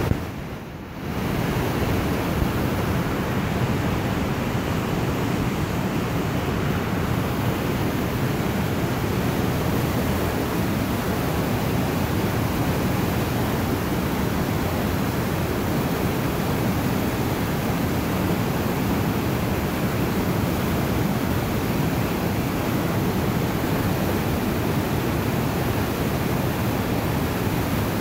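River rapids rushing over boulders: a steady, unbroken wash of white-water noise, which drops away briefly about half a second in and then resumes.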